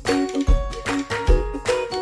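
Background music with a steady beat and bright plucked or chimed notes.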